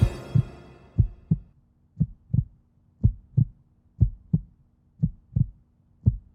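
Heartbeat sound effect: low lub-dub double thumps, about one a second, seven in all. A ringing tail fades out over the first second or so.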